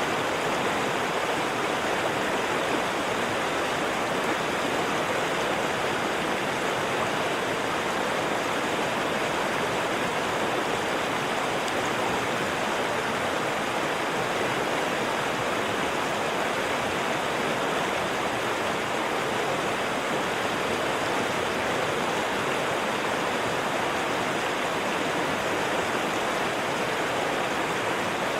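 River water flowing steadily: an even, unbroken rush with no distinct splashes.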